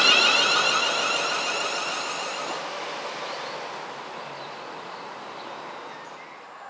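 A London Midland electric multiple unit moving away down the line: its high electric whine fades over the first few seconds, leaving a faint, steadily dying rumble.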